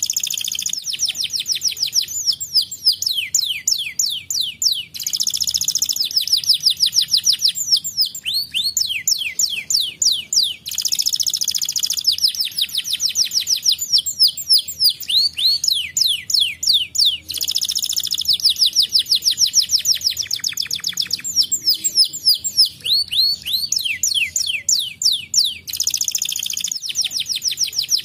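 Domestic canary singing a long, unbroken high-pitched song of fast repeated chirps, with a dense rolling trill about every six seconds.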